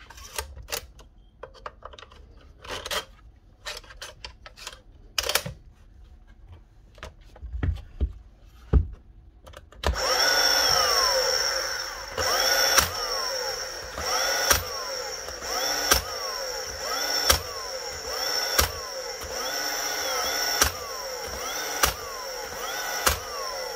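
Scattered handling clicks and knocks, then a repaired DeWalt 18V cordless flywheel nailer's motor spins up with a high whine about ten seconds in. It test-fires about eight times, a sharp snap every second and a half or so, and after each shot the whine dips and climbs back as the flywheel recovers: the gun is cycling properly after the repair.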